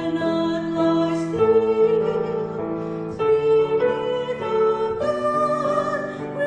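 A choir sings a slow hymn in harmony, with held chords that change about once a second.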